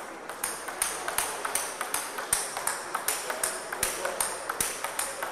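A regular run of sharp, ringing clicks, about three a second.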